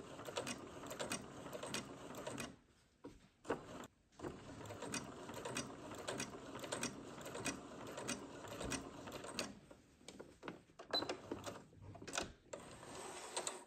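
Domestic sewing machine stitching a row of long basting stitches (stitch length 5), running in a steady rhythm of needle strokes and stopping briefly twice, about two and a half seconds in and again around ten seconds in.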